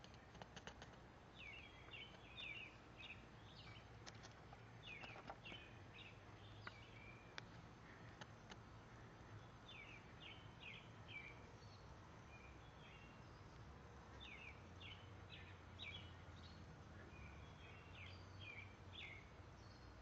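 Faint songbird singing: short phrases of quick down-slurred notes, repeated every few seconds. A few faint clicks in the first second.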